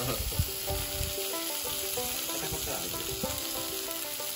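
Baby corn with soy sauce sizzling on a hot tabletop grill plate, a steady hiss, under faint background music of held notes.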